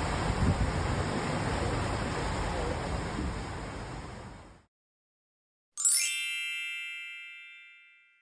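Steady rushing noise of wind and sea that fades out about four and a half seconds in; after a second of silence, a single bright bell-like ding rings out and dies away over about two seconds.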